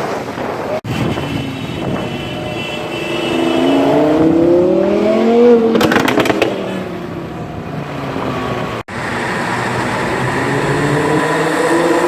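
Lamborghini Huracán's V10 through a Frequency Intelligent (Fi) aftermarket exhaust accelerating hard, its pitch climbing, then a quick run of sharp crackles as the throttle is lifted about six seconds in. After a brief cut near the end, it pulls again with rising pitch.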